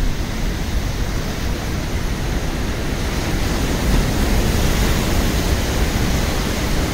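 Steady noise of wind and rough sea surf breaking on a rock seawall, with wind buffeting the microphone and giving a heavy low rumble.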